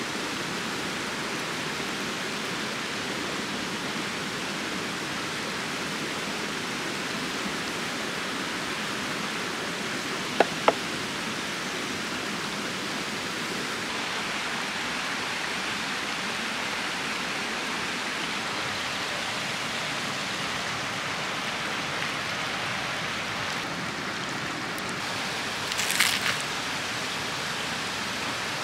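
Steady rush of a stream flowing over rocks. Two sharp clicks come about ten seconds in, and a short crackle comes near the end.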